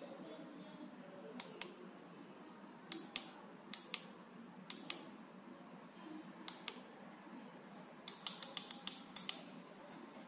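Push-buttons on a handheld borescope's monitor being pressed, clicking to rotate and zoom the image: sharp clicks, mostly in pairs, spaced a second or so apart, then a quick run of about ten clicks near the end.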